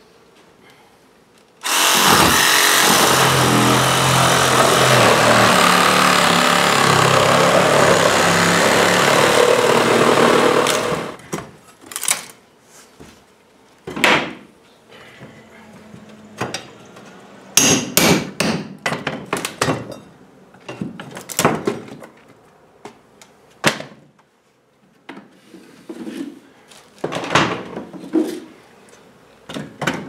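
A power tool runs steadily for about nine seconds, cutting into an old wooden strip floor. It stops, and a hammer then drives a pry bar into the floorboards in a string of separate knocks and clunks.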